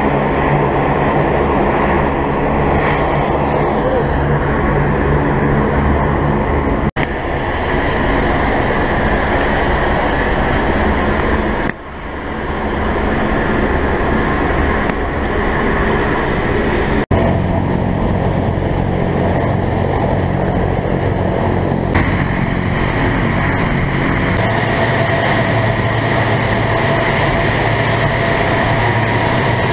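Turboprop transport aircraft engines running, a steady loud drone with a low hum, broken off abruptly by a few edit cuts; a high steady whine joins in past the middle.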